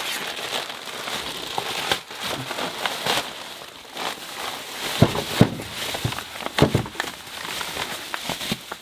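Parcel packaging crinkling and rustling as it is unwrapped by hand, with sharp crackles and a few louder knocks about five and seven seconds in.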